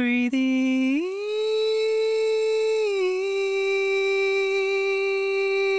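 A recorded lead vocal sings one long held note with no clear words. It slides up in pitch in the first second, drops slightly about three seconds in, then holds steady.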